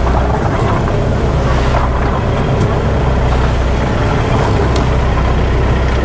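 Car driving along a narrow road: a steady, low engine and road rumble.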